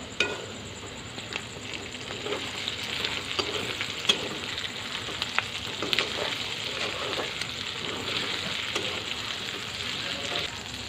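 A potato stir-fry sizzling steadily in oil in a wok while a metal spatula stirs it, with scattered sharp scrapes and clicks of the spatula against the pan.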